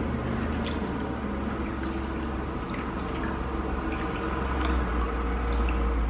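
Muddy water sloshing and splashing in a plastic basin as a natural whetstone is scrubbed by hand, with a few light knocks of the stone. Near the end the stone is lifted out, dripping.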